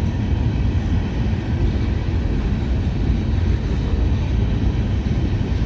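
Freight train's covered hopper cars rolling past at close range: a steady low rolling noise of steel wheels on the rails.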